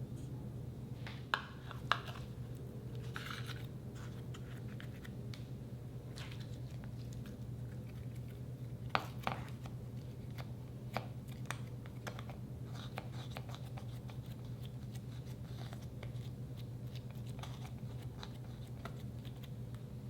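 Slime being pressed and worked by hand, giving scattered sticky clicks and crackles, a few sharper pops among them, over a steady low hum.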